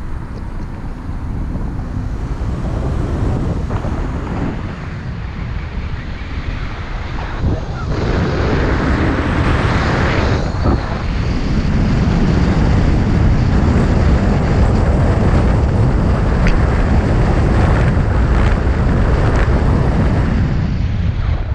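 Wind buffeting the microphone of a camera on a moving vehicle, a dense low rumble with road noise and no distinct tones. It grows louder about eight seconds in and again around twelve seconds as the vehicle picks up speed.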